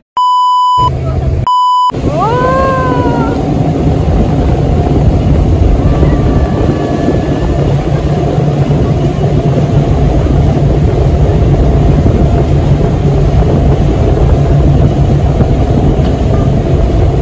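Two short steady censor bleeps at the very start, then a brief exclamation from a voice that rises and falls in pitch. Under them is the steady running of the parasail tow boat's engine with rushing wind and water.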